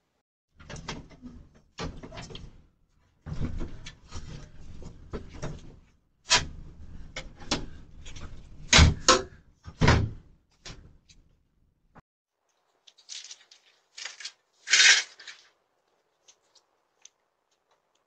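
Repeated clattering, clicks and knocks of a door or metal mail panel being handled, loudest about nine to ten seconds in. A few short scraping, rustling bursts follow a few seconds later.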